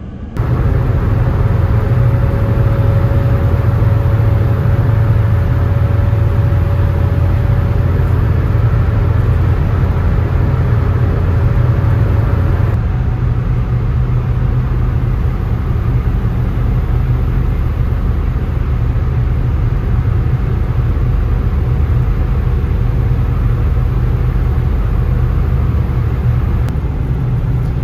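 Van driving on a highway: a steady low rumble of engine and road noise, with a faint whine that rises slightly in pitch and stops about thirteen seconds in.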